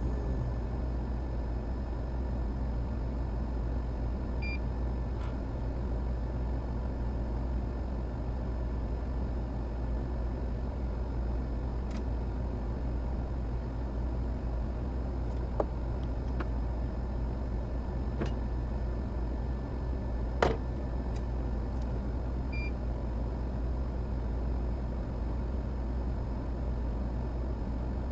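Steady low machine hum from bench equipment, with two short electronic beeps and a few light clicks; the sharpest click comes about two-thirds of the way through.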